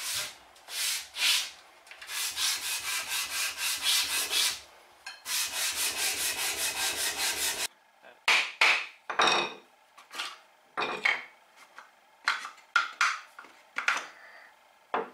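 A piece of the plane rubbed back and forth on sandpaper, in long strokes and then a quicker run of short strokes, about five a second, that stops abruptly. After that, a small hammer taps the wooden coffin smoother a dozen or so times, in separate sharp knocks.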